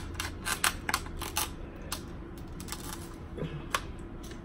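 A seafood cracking tool working on a king crab leg: a quick run of sharp clicks and cracks in the first couple of seconds, then one more near the end.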